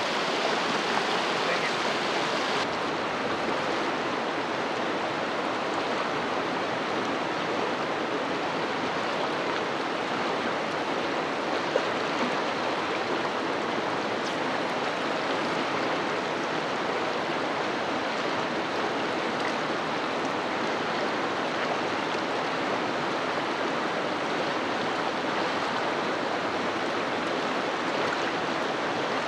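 Shallow river riffle rushing steadily over rocks, with one short click about twelve seconds in.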